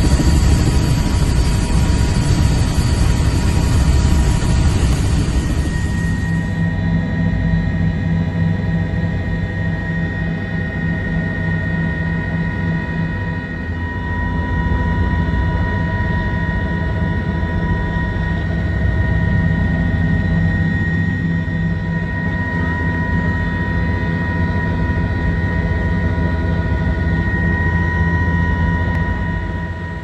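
Helicopter running: a steady low drone with a constant high-pitched whine over it. The higher hiss drops away about six seconds in, while the drone and whine carry on.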